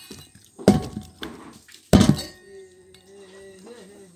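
Bamboo cooking tube knocking twice against a stainless steel bowl, about a second apart, as the cooked pork is tipped out, the bowl ringing briefly after each knock.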